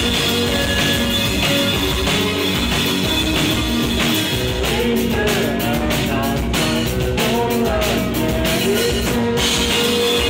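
A live rock band playing: drum kit, electric bass and guitars together, loud and steady.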